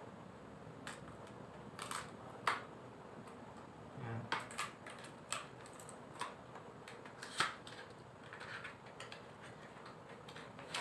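Hands opening a small cardboard medicine carton and breaking its seal sticker to take out a syrup bottle: scattered, irregular light clicks and crackles of card and paper, with the sharpest snaps about two and a half and seven and a half seconds in.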